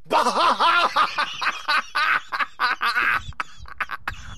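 Laughter: a run of short bursts that starts loud and trails off over about three seconds.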